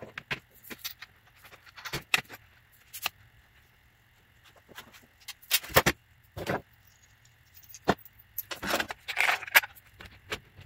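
Metal telescope tripod legs and their small bolt hardware being handled and fitted to the mount head: scattered clinks and knocks of metal parts, with a few louder clatters around the middle and again near the end.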